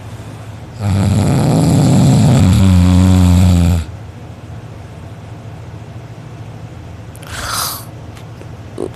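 A sleeping person snoring loudly. One long snore starts about a second in, rough at first, then turns into a low buzzing drone and stops abruptly. After it comes a few seconds of quieter breathing, with a faint short sound near the end.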